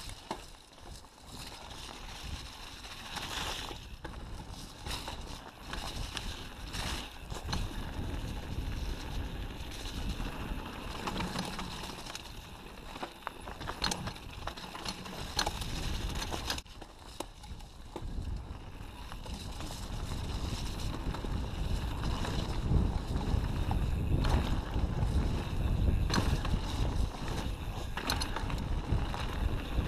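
Mountain bike ridden over dirt singletrack, heard from a handlebar-mounted camera: tyres rolling on mud and roots, the bike rattling with frequent sharp knocks, and wind rushing over the microphone. It gets louder about two-thirds of the way through as the bike picks up speed.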